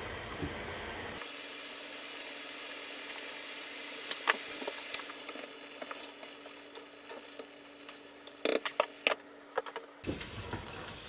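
A pot of egusi soup simmering with a steady sizzling hiss. There is one sharp clink about four seconds in and a cluster of clinks and knocks near the end.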